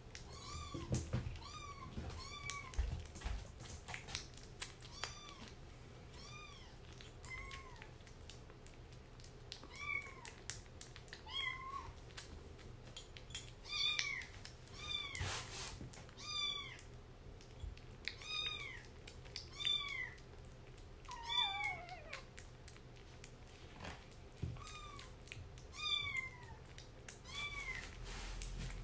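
Kitten mewing over and over: short, high mews that rise and fall in pitch, about one a second, with one longer falling mew about two-thirds of the way through. Soft clicks of a kitten eating wet food from a bowl run between them.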